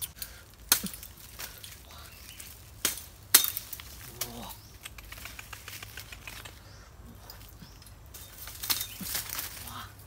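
Leaves and twigs rustling as someone handles plants and moves through undergrowth, with a few sharp snaps or cracks; the loudest comes about a third of the way in.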